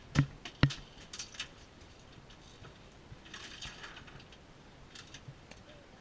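Two sharp clicks about half a second apart, then lighter clicking and a brief rustle of handled gear.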